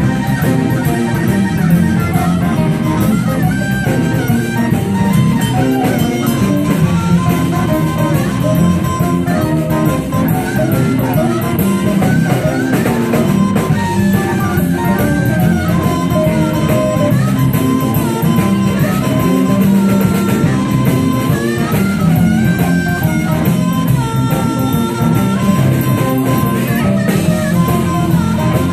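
Live band playing a blues number: electric guitars and a drum kit, with a harmonica played into the vocal mic.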